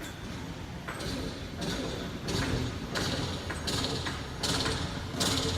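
Footsteps scuffing and crunching on a gritty concrete floor at a steady walking pace, a little more than one step a second, over a low background rumble.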